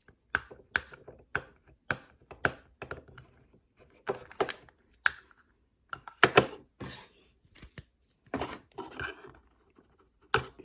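Irregular sharp clicks and taps of hands handling a small plastic box while picking tape off it, with a few longer scraping rustles in between.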